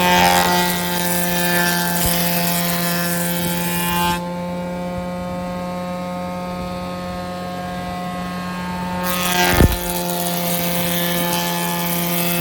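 Kolle HA41 jointer running with a steady hum and whine, planing wood: a board is fed across the cutterhead for the first four seconds or so, the machine then runs idle for about five seconds, and a second pass starts with a thump about nine and a half seconds in.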